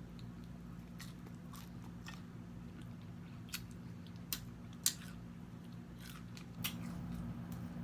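Close-up mouth sounds of a person chewing food: irregular sharp smacks and crunches, about eight over several seconds, the strongest about five seconds in, over a steady low hum.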